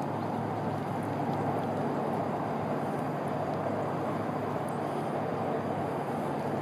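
Steady rumbling background noise, with no distinct event standing out.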